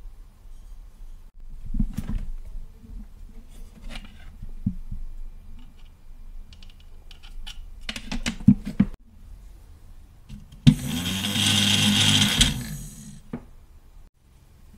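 Small parts being handled and fitted in a plastic pencil case: scattered clicks and knocks of plastic, wire and battery holder, over a faint steady low hum. About eleven seconds in, a louder rushing noise lasts about two seconds, then stops.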